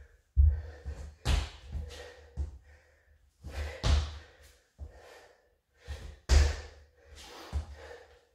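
Irregular thuds of trainers landing on a wooden floor during reverse lunge hops, each with a sharp, heavy exhale from the exerciser.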